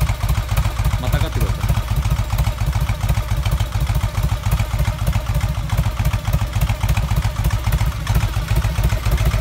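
Vintage Harley-Davidson Panhead V-twin idling steadily with an even, pulsing beat, running just after a successful kick start.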